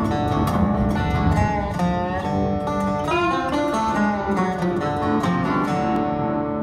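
Instrumental music carried by plucked guitar, with bending notes and a regular strummed pulse.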